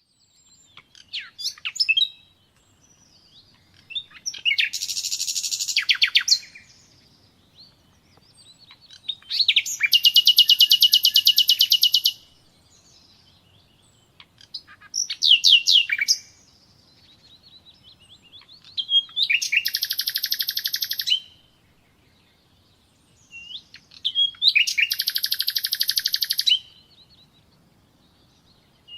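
Common nightingale singing in separate phrases a few seconds apart, six in all. Several phrases are fast, high trills of rapidly repeated notes, and the longest runs about three seconds.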